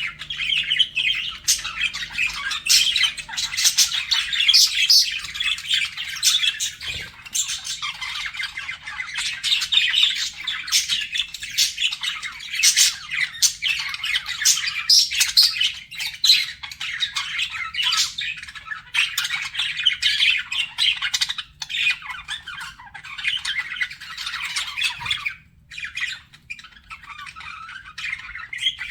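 Budgerigars chattering and warbling continuously, with many short sharp squawks and chirps mixed in and a brief lull near the end.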